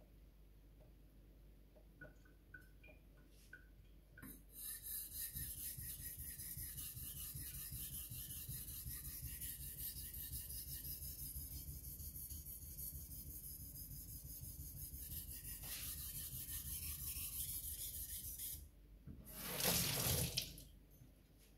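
Takamura Chromax knife blade being stroked back and forth on a wet whetstone: a steady, rhythmic scraping rub lasting about fourteen seconds. Near the end a sink tap is turned on and runs briefly to wet the stone.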